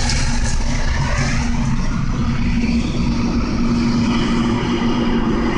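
Train pushing a snow plow through deep snow and passing close at speed: a loud, steady rushing of thrown snow and rolling noise, with a steady hum underneath.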